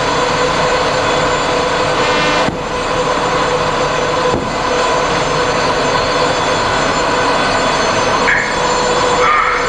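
Steady loud mechanical drone with a constant hum running through it, dipping briefly twice; no gun blasts.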